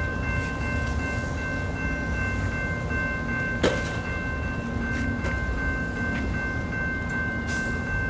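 Calgary CTrain light-rail train running close by: a steady electrical whine of several high tones over a low rumble, with a single sharp click about three and a half seconds in.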